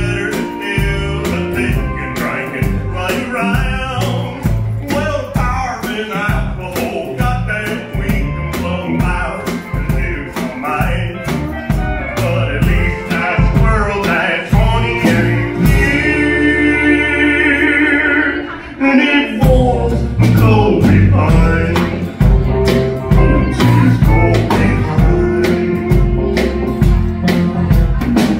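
Live country band with drum kit, electric guitar, acoustic guitar and steel guitar, playing an instrumental break. A little past halfway the drums drop out for a few seconds, leaving a held chord, then the full band comes back in.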